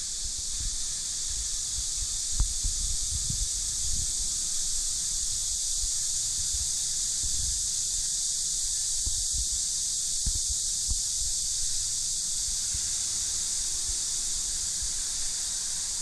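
A steady high-pitched hiss throughout, with irregular low bumps and rumbles on the microphone.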